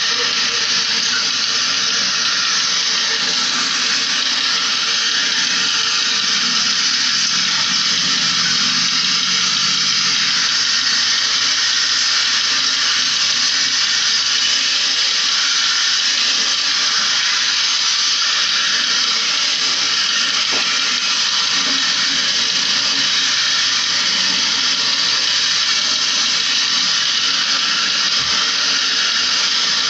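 Steady hiss of a water spray from a hose nozzle, rinsing the finned coil of a window-type air conditioner during cleaning.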